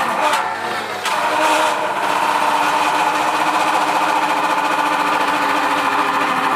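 Electric motor of a bench drill press used as a wood mortiser, running steadily with a high tone. In the first second or so its bit bores into a timber beam.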